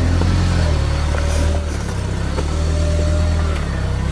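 Jeep engine running low and steady as it crawls slowly over a rocky trail, with a few light knocks from the tyres on the rocks.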